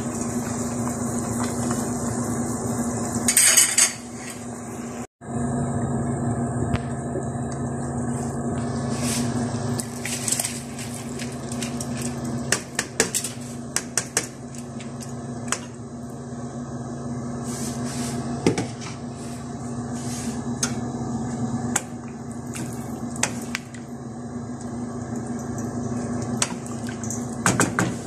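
Cooking pots, a lid and utensils knocking and clinking at the stove: many short, light clatters over a steady low hum.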